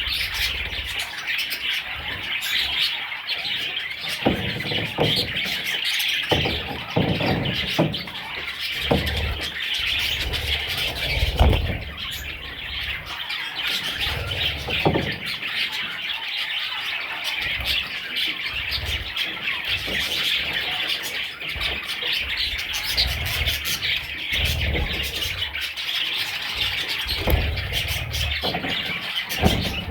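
Budgerigars chattering and chirping without pause in a dense, steady mass of calls, with occasional low thumps and knocks among them.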